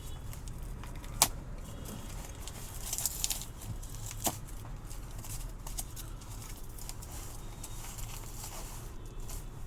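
Packaging and small parts being handled during an unboxing: two sharp clicks, about a second in and about four seconds in, and a brief rustle around three seconds, over a steady low hum.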